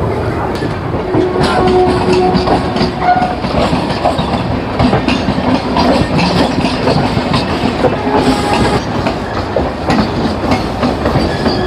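Sealdah–Puri Duronto Express train running on the track, its wheels clattering rhythmically over rail joints, with a few brief steady tones from the running gear.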